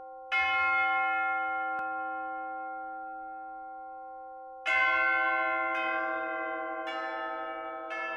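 Church bells ringing: one bell struck shortly after the start and left to ring out, then, after a pause of about four seconds, four strikes about a second apart on different pitches, each ringing on over the last.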